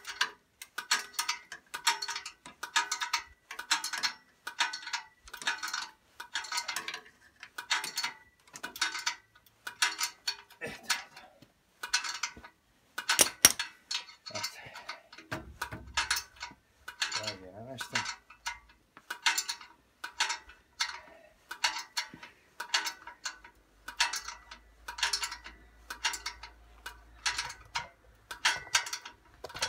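Ratchet wrench being worked back and forth in steady short strokes, about two a second, with a short break in the middle, as bolts are run in.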